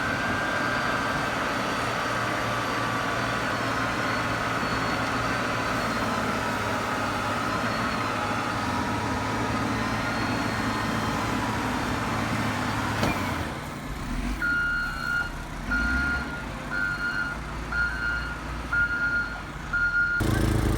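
An engine runs steadily. After a sudden change about 13 seconds in, a snow-clearing vehicle's reversing alarm beeps about once a second, seven times, as it backs up.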